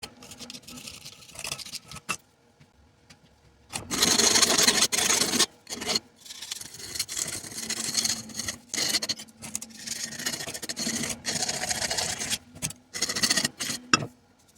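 Rough rasping and scraping as the edges of a freshly cast refractory ribbon-burner block are trimmed down, in uneven strokes with short pauses; it is faint at first and gets much louder about four seconds in.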